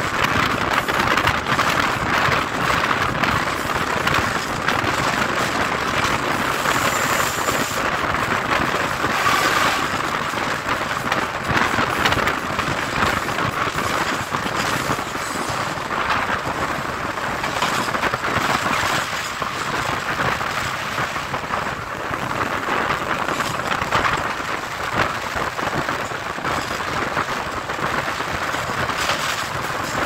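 Steady rushing noise of a moving passenger train heard from its open door: wheels running on the track and wind, with surf breaking on the rocks alongside the line.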